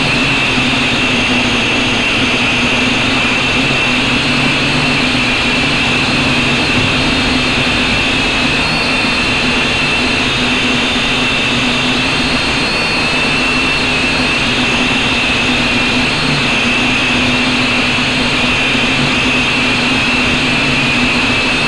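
Loud, steady wind noise rushing over the camera's microphone, with a faint steady hum under it.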